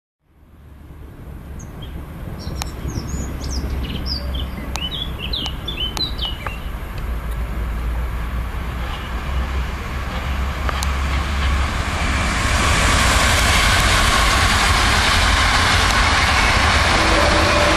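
Birds chirping over a low hum, then an electric passenger train approaching and passing. Its rushing noise grows from about ten seconds in and settles into a steady loud rush.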